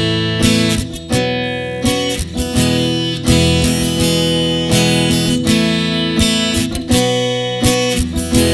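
Ibanez AEL207E seven-string acoustic-electric guitar strumming chords in a steady rhythm, a strong strum roughly once a second with the chords ringing between them.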